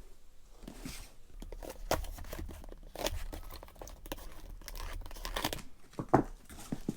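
Packaging being torn and crinkled by hand as a delivery is opened, with irregular rustles and clicks and one sharper knock about six seconds in.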